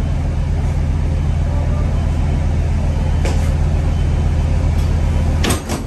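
Diesel engine idling: a steady, even low drone. A sharp click sounds about three seconds in, and two more come close together near the end.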